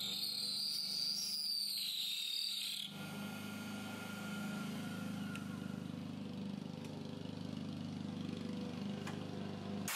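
Benchtop milling machine with a 1/4-inch end mill plunge-cutting aluminum: a high whine while the cutter is in the metal for about the first three seconds, then the cutter lifts clear and the spindle motor runs on with a steady hum.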